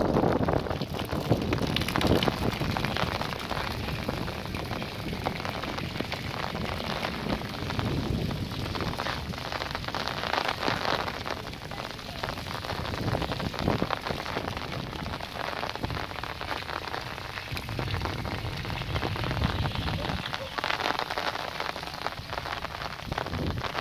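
Steady heavy rain pattering on a wet track and the trees, a dense hiss of drops. Gusts of wind rumble low on the microphone now and then.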